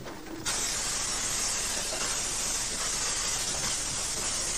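Narrow-gauge steam locomotive letting off steam: a steady hiss that starts abruptly about half a second in and holds evenly throughout.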